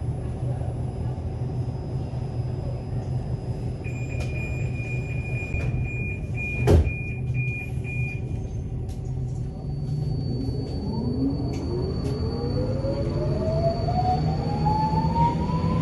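Alstom Metropolis metro train standing at a platform with a steady hum. A pulsing door-warning beep sounds for a few seconds, a single loud thump comes as the sliding doors shut about seven seconds in, and near the end the electric traction motors' whine rises steadily in pitch as the train pulls away.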